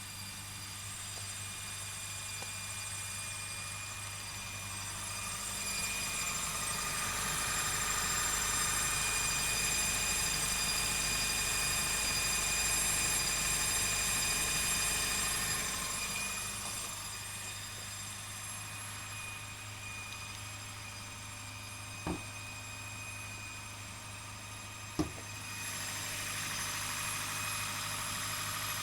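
Engine room of a Honda Fit Hybrid (GP6) after a cold start, with a steady whine of several high tones over a low hum, louder for a stretch in the first half, and two sharp clicks near the end. This is the abnormal noise that appears only when the car is cold and fades once it warms up, for which the dealer decided to replace the transmission.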